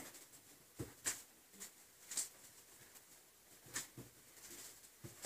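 Quiet room tone in a pause of a talk, with a few faint short clicks about a second apart.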